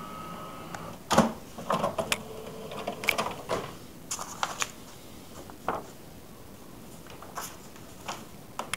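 HP all-in-one inkjet printer feeding out a blank sheet: its steady motor whir stops just under a second in, followed by a run of sharp clicks and clacks from the paper-feed mechanism with a brief hum in the middle, then a few scattered clicks.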